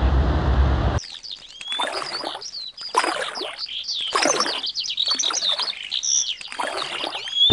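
Street traffic noise that cuts off about a second in, then many birds chirping and twittering over soft swishes of water.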